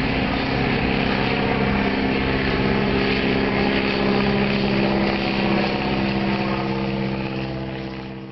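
1929 New Standard D-25A biplane's radial engine and propeller droning steadily overhead. The sound fades out near the end.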